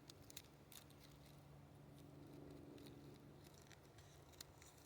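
Near silence: a faint steady low hum with a few soft clicks.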